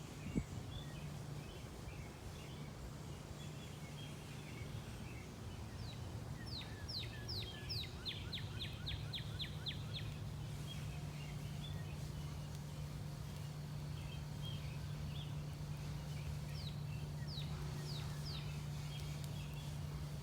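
Songbirds chirping, with a run of quick, descending whistled notes about a third of the way in and a shorter run near the end, over a steady low hum. A single sharp click sounds just after the start.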